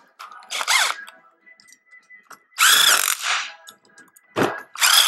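Power drill with a socket driving the bolts that hold the sprocket to a Cushman scooter rear axle hub, in about four short bursts, its motor whine rising as it spins up and falling as it lets off.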